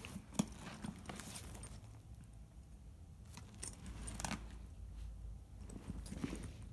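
Faint handling noise from a rolling tote bag being turned over on carpet: scattered light clicks and clinks, with a low rumble about four seconds in.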